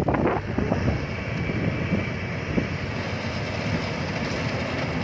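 Yanmar AW82V rice combine harvester running steadily as it travels across the paddy, its engine giving a continuous drone with a faint steady whine above it.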